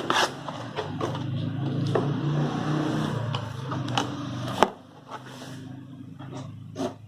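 A fireworks package being handled and opened, with scattered sharp clicks and rustles. Under it runs a low steady engine-like hum that stops abruptly about four and a half seconds in.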